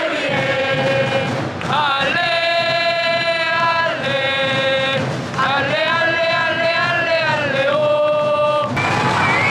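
Football supporters singing a chant in unison, in long held phrases of about two to three seconds each with brief breaks between them, giving way to looser crowd shouting near the end.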